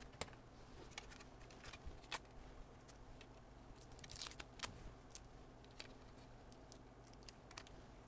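Faint, scattered clicks and light taps from a populated circuit board being handled and set down on a silicone work mat, over quiet room tone, with a short cluster of clicks about four seconds in.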